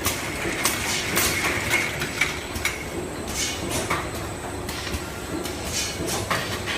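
Automatic six-head piston sauce filling machine running, with irregular clacks and short hisses from its moving parts and bottles over a steady machine noise.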